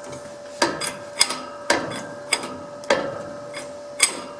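A run of about seven sharp metallic knocks, roughly half a second apart, each ringing briefly: steel rail being worked to take out some of its bend.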